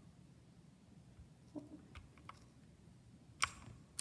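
A few separate keystrokes on a Redragon mechanical keyboard with clicky blue switches: faint clicks about one and a half to two seconds in, then a louder click near the end.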